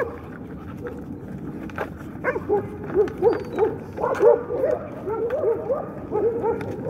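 Dogs, puppies among them, whining and whimpering in short, repeated cries that rise and fall in pitch, starting about two seconds in.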